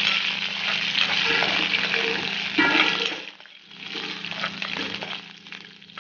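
Tempering spices (mustard and cumin seeds, fenugreek seeds, curry leaves and green chillies) sizzling in hot oil in a kadhai while a steel spoon stirs and scrapes the pan. The sizzle is loudest for the first three seconds, then dies down briefly and goes on quieter.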